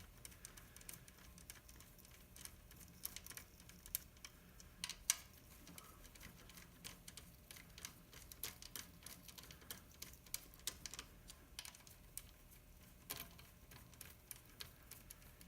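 Faint, scattered light clicks and taps of small metal engine parts being handled and set in place: rocker arms and pushrods going onto an LQ4 V8's cylinder head. The clicks are irregular, with a couple of sharper taps about five seconds in and near the end.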